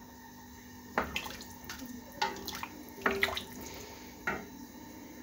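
Wooden spoon stirring diced potatoes and carrots in water in a stainless steel pot: water sloshing, with several sharp knocks as the spoon hits the side of the pot.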